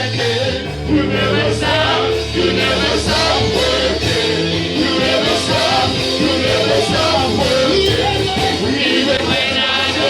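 Worship music with a band playing to a steady beat, and voices singing along.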